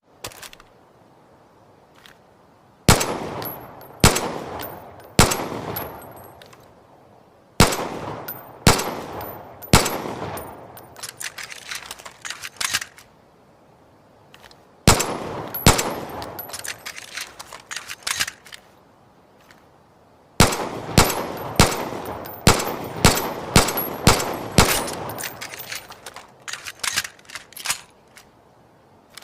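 Ed Brown 1911 pistol firing single shots, each followed by a long echoing tail. Groups of three shots come about a second apart, then a run of quicker, fainter cracks, then a long string of shots at about two a second near the end.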